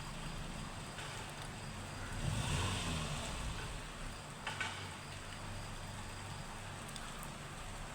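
Steady rain, with a car passing on the wet road about two to three seconds in and a single short tap a little later.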